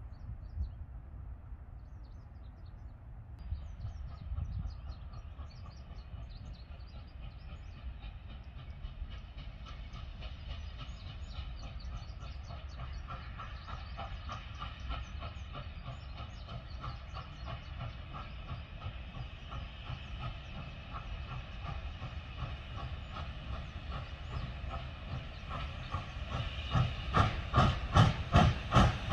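Norfolk and Western 611, a J-class 4-8-4 steam locomotive, working toward the microphone: a low rumble that slowly grows, then in the last few seconds its exhaust chuffs come through loud and rhythmic, about three a second.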